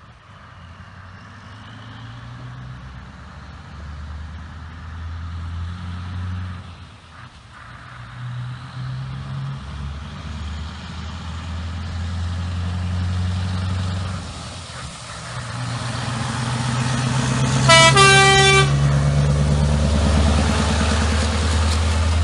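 Scania articulated truck approaching under power, its engine note rising and dipping as it shifts gears and getting steadily louder. About 18 s in it gives one blast of its air horn, just under a second long, and then passes close with loud engine and tyre noise.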